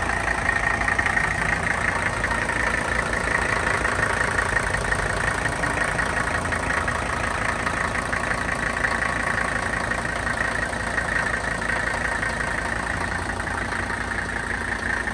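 1982 Mercedes-Benz 300 SD's OM617 3.0-litre five-cylinder turbodiesel idling steadily after a cold start.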